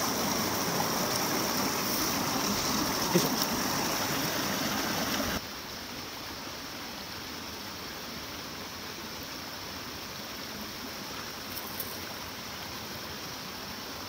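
Mountain stream water running over rocks close by, a steady rushing noise. About five seconds in it drops abruptly to a softer, more distant flow. A single sharp click comes about three seconds in.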